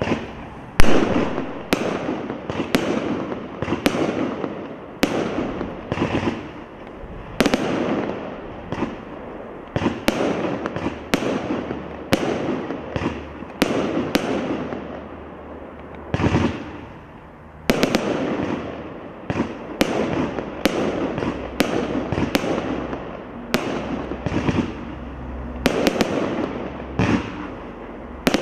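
A 29-shot consumer fireworks cake firing its shots one after another, about one a second, each lifting a tail and breaking into a chrysanthemum. Each shot is a sharp bang that dies away over about a second; the loudest comes about a second in.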